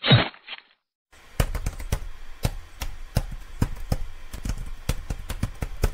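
A short whoosh-like hit at the start, then, after a brief pause, a typewriter sound effect: a run of sharp, irregular key clicks, about three a second, over a low hum, timed to the title text typing itself out.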